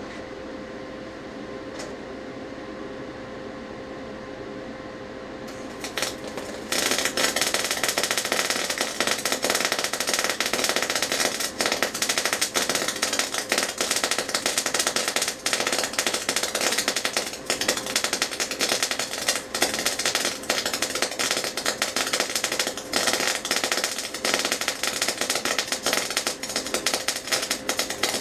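A low steady hum, then about six seconds in a spray-transfer MIG welding arc strikes and runs without a break as a loud, dense crackling hiss while the cover pass is laid on a beveled steel butt joint.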